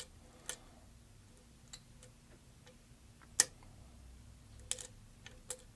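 Faint, irregular metallic clicks and ticks of a lock pick probing the pins inside a challenge lock's keyway, with one sharper click about halfway through.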